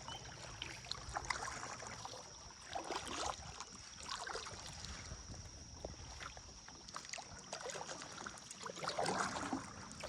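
Kayak paddle strokes in river water: irregular splashes and swishes as the blade dips and lifts, with water dripping and small knocks in between. A steady faint high-pitched whine runs underneath.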